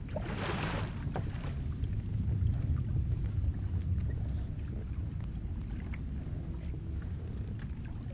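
Wind buffeting an action-camera microphone on a kayak at sea, a steady low rumble, with water washing against the hull and scattered faint ticks.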